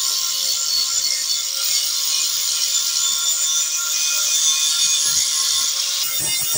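Angle grinder with an abrasive disc grinding a steel knife blade: a steady, hissing grind over the motor's whine, which eases about six seconds in.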